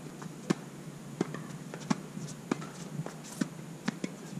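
Short-court tennis rally: a ball struck back and forth with racquets and bouncing on the hard court, giving a string of sharp knocks about every two-thirds of a second.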